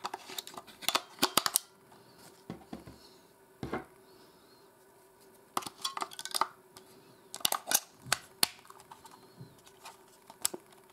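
AA batteries clicking and clattering into the plastic battery compartment of a Sony ICF-P26 pocket radio, against its metal spring contacts, then the battery door being pressed shut; several bunches of sharp plastic clicks with pauses between them.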